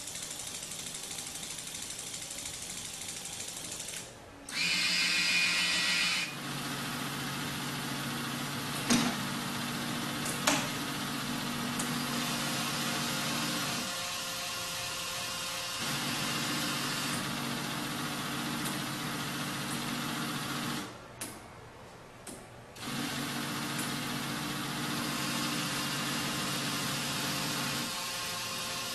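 Small electric motors of a tabletop model factory running with a steady low hum that stops and restarts several times. There is a louder, higher buzz for about two seconds near the start, and two sharp clicks a second and a half apart about nine seconds in.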